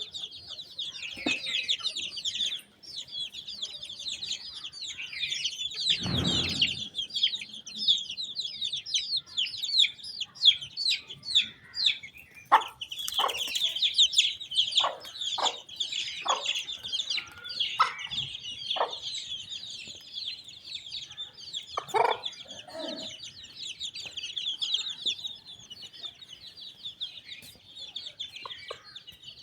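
A brood of chicks peeping constantly in a dense high chorus, while an Aseel hen gives a run of short clucks in the middle and again a few seconds later. A low dull thump sounds about six seconds in.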